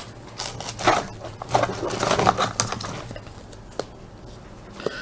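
Crinkling and rustling of a trading-card pack's wrapper being handled, in a string of short bursts, with a single click near the end.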